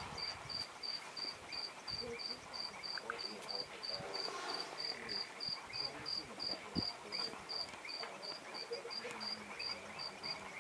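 A cricket chirping steadily: short high notes at an even rate of about three a second, breaking off shortly before the end.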